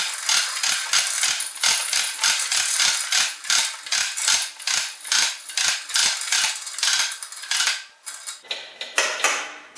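Retractable air hose reel turning as the hose is pulled off, its ratchet clicking about three times a second. The clicking stops about eight seconds in.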